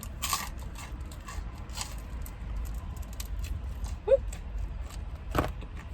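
Close-miked chewing of pizza: a run of soft mouth clicks and smacks, with a short rising mouth sound about four seconds in and a sharper smack or knock near the end.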